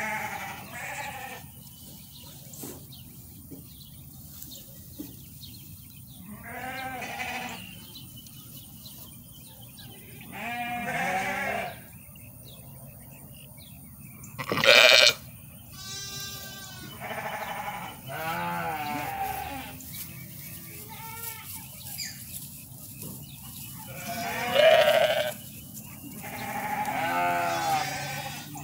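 Dorper sheep bleating, about nine calls a few seconds apart, some with a wavering pitch. The loudest comes about halfway through.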